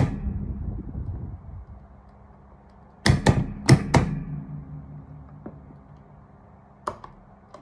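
Electrical magnetic contactors on a crane hoist control panel clacking as they pull in and drop out while pendant control buttons are pressed and released: one sharp clack at the start, three in quick succession about three to four seconds in, and another near the end, with a faint steady hum between.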